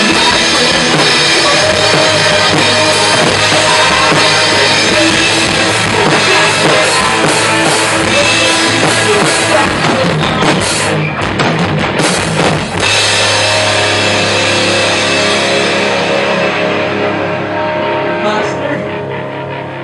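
Rock band playing live: drum kit with cymbals, electric guitars and bass guitar. About 13 seconds in the drums stop, and the guitars and bass let a final chord ring, slowly fading.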